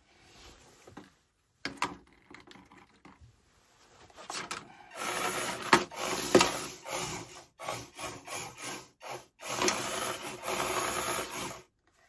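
Small 3D-printed combat robots driving and shoving each other across a wooden arena floor: stop-start bursts of plastic scraping and rubbing on the wood, with two sharp knocks of impact about six seconds in.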